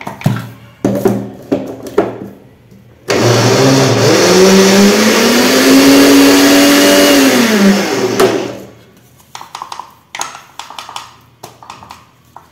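Electric grinder running for about five seconds, grinding lemon peel, mint leaves and sugar; its motor pitch rises as it spins up, then falls as it runs down. Light knocks and clicks come before and after.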